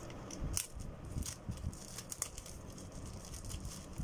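Thin plastic protective sleeve rustling and crinkling as hands pull it off a drone's remote controller, with a handful of sharp crackles.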